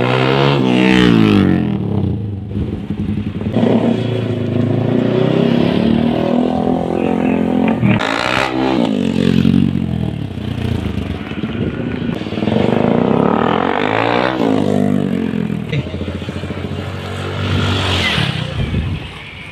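Motorcycle engines revving up and dropping off again several times over, as riders accelerate and then brake hard in emergency-stop drills.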